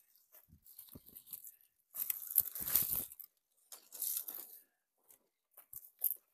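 Dry brush and leafy branches rustling and crackling in several separate bursts as branches are pulled and broken off a shrub, the loudest about two to three seconds in.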